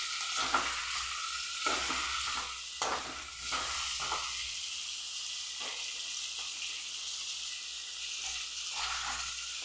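Chopped tomatoes and onions sizzling in hot oil in a kadai, with a steel ladle scraping and stirring through them several times, mostly in the first half.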